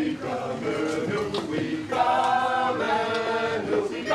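A small group of people singing together without accompaniment, several voices holding long notes in phrases; the singing gets a little louder about halfway through.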